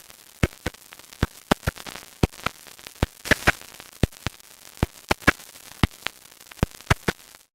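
Irregular clicks and pops, about two or three a second, over a steady hiss that cuts off suddenly near the end: the crackle and surface noise of an old, damaged soundtrack before restoration.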